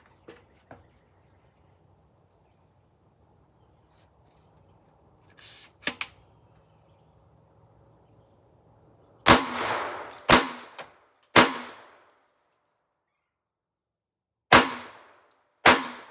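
Unsuppressed 16-inch POF AR-15 in .300 Blackout firing subsonic 220-grain plated handloads: single shots, each with a short ringing tail. One comes about six seconds in, three follow about a second apart from about nine seconds, and two more come near the end.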